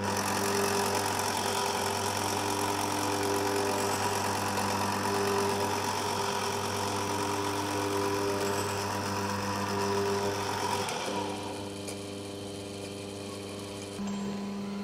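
Small electric motor of a spoon-stirring kinetic sculpture, switched on by push-button: it starts suddenly and runs with a steady buzzing hum and a whirring noise above it. About eleven seconds in it drops quieter as the whirr fades.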